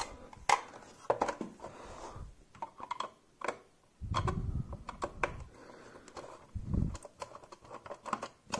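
Small irregular plastic clicks and taps as a screwdriver turns the battery-cover screw of a plastic Hot Wheels track booster and the toy is handled, with two dull low rumbles of handling in the second half.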